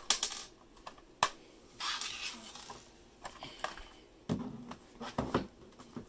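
Hard plastic clicks, taps and a short scrape as the Alienware Alpha mini PC's case is handled and its bottom cover worked loose, with a few duller knocks near the end.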